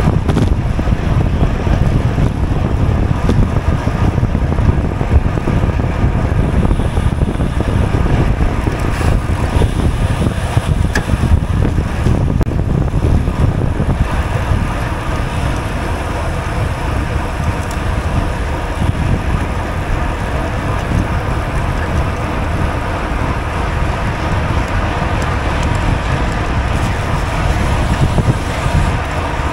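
Wind rumbling on a GoPro's microphone on a moving racing bicycle, loud and steady, easing a little about halfway through.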